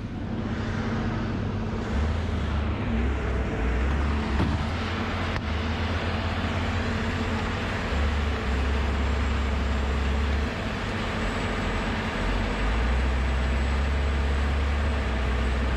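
Wood grinder's engine running steadily, with gusts of wind rumbling on the microphone now and then.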